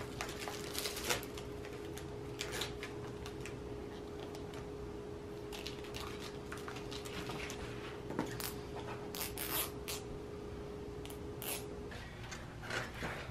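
Handling noise from unwrapping a new bicycle inner tube and working it and the tire onto the wheel rim: plastic crinkling, rubber rubbing and scattered light clicks. Under it runs a faint steady hum that stops near the end.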